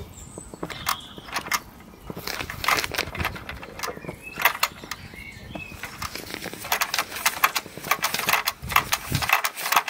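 Wilesco D20 model steam engine running, its cylinder, crosshead and flywheel giving a quick, uneven run of light mechanical clicks and knocks.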